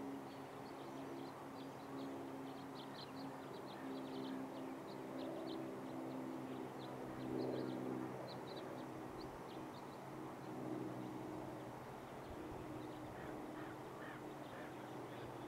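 Birds chirping in short, quick bursts, over a steady low hum.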